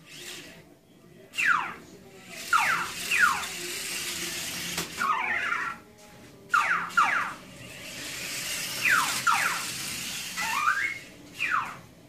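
A small animal's high-pitched squealing calls, each dropping quickly in pitch, coming in pairs and short runs, with stretches of hissing noise between them.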